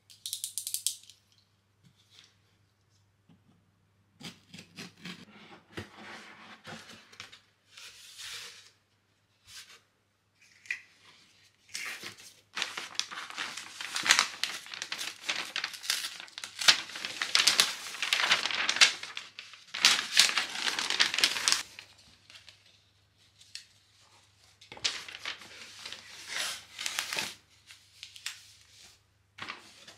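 Hands opening a cardboard box and unwrapping kraft paper: paper tearing and crinkling in irregular bursts, busiest through the middle, over a faint steady low hum.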